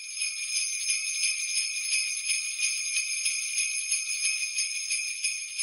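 Sleigh bells shaken in a steady rhythm, about three shakes a second, on their own with no other instruments.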